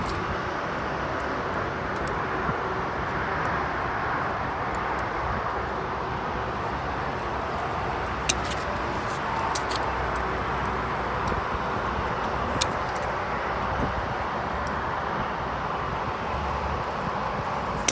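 Steady outdoor background noise, an even hiss and rumble like traffic, with a few sharp clicks partway through as pliers work at a nail stuck in a tire.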